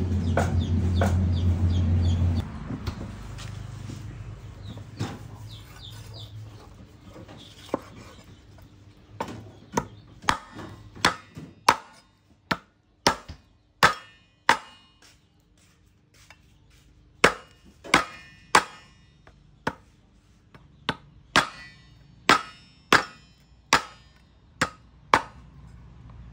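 A knife chopping pork ribs on a wooden chopping board: sharp single strikes, irregularly spaced, about one or two a second through the second half. A steady low hum fills the first couple of seconds and then stops.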